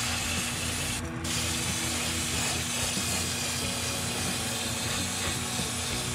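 Airbrush spraying clear coat onto a crankbait, a steady hiss of air and paint that cuts out briefly about a second in. The steady hum of the spray booth's exhaust fan runs underneath.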